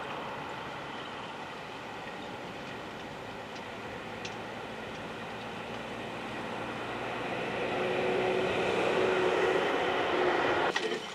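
Horse-drawn carriage pulled by a four-horse team rolling over grass: a steady rattle of wheels and harness that grows louder over the last few seconds as it comes closer, with a faint steady tone joining it, then cuts off abruptly near the end.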